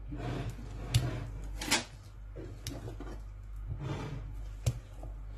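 Spatula stirring thick cake batter in a glass bowl: wet scraping strokes, with three sharp taps of the spatula against the glass.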